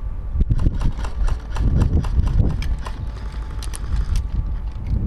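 Wind rumbling on the microphone, with irregular sharp clicks and knocks scattered through it and a few heavier low thumps about two seconds in.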